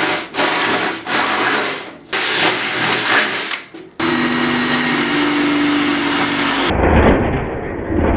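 Electric arc welding crackling in several bursts of about a second each, with short breaks between. About halfway through the sound changes abruptly to a steady, even noise with a low hum.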